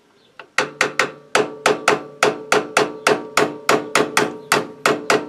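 Hammer tapping a steel pin punch to drive the cotter pin out of a Motobécane moped's pedal crank, freeing the pulley plate for removal. Light, even taps about three to four a second, each with a metallic ring, starting about half a second in.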